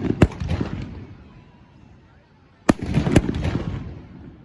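Fireworks bursting overhead: a sharp bang just after the start, then two more bangs about half a second apart around three seconds in, each followed by a rolling rumble that fades away.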